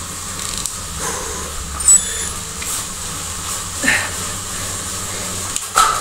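Tacx indoor bike trainer running with a steady whir and hiss under the pedalling rider. A short sharp click comes about two seconds in, and two brief hard exhalations come near the end.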